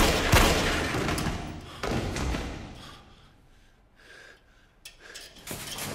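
Heavy thuds echoing in a large hard room: one at the start and another about two seconds in, each dying away slowly to near quiet, followed by a couple of faint clicks near the end.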